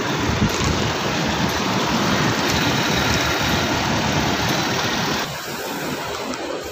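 Toyota Sequoia's V8 engine idling steadily after a repaired no-crank fault, growing quieter about five seconds in.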